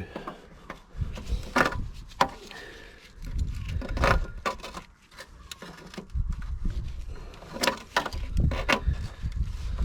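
Mole grips clicking and knocking on a rusty broken stud as it is worked back and forth to unscrew it, over intermittent low rumbling handling noise.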